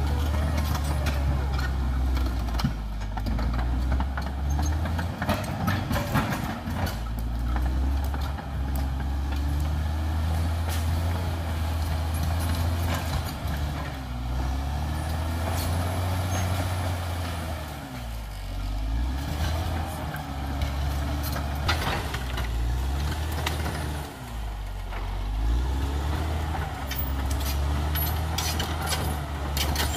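CAT D6R XL bulldozer's diesel engine running hard under load, its pitch sagging twice as it lugs and then picking back up. Scattered clanks and knocks are heard over it.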